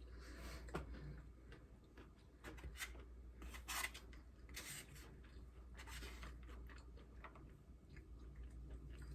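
Faint chewing of a takeout meal, with about five short scraping or rustling bursts, the longest a little under half a second, the loudest about four seconds in.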